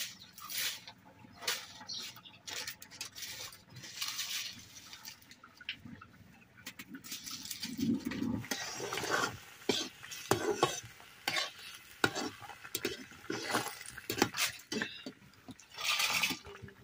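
Irregular clicks, knocks and scrapes of hands-on cooking: twigs handled and fed into a wood-fired mud stove, and a metal spatula stirring curry in a metal kadai.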